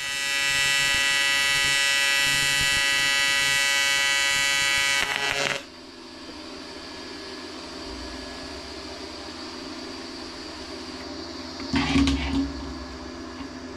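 AC TIG welding arc from a Hitbox HBT250P on aluminium, set to 140 Hz AC frequency. It gives a loud, even buzz that cuts off suddenly about five and a half seconds in. After it, a quieter steady hiss and hum from the welder carries on, with a short handling noise near the end.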